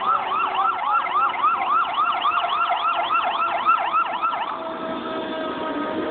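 Emergency vehicle siren in a fast yelp, sweeping up and down about four times a second, which cuts off about four and a half seconds in and leaves a fainter steady siren tone with traffic noise.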